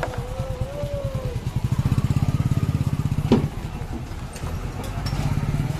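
Bus diesel engine idling with a steady, rapid low pulsing, a little louder for a couple of seconds in the middle. A sharp click about three seconds in.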